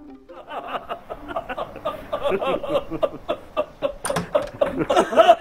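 Several people talking and laughing at once, their voices overlapping into a lively chatter that grows louder toward the end.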